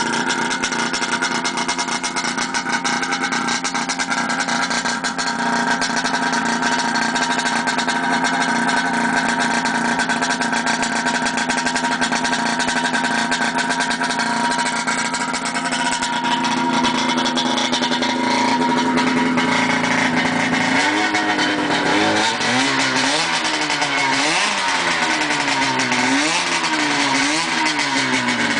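1979 Kawasaki Invader 440 snowmobile's two-stroke engine running open through a gutted stock exhaust pipe. It idles steadily, then from about three-quarters of the way through it is revved up and down about four times.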